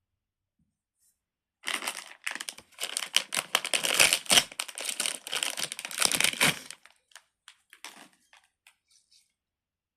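Crinkling and rustling of a fidget toy and its wrapping being handled, a dense run of small crackles for about five seconds, then a few scattered light ticks.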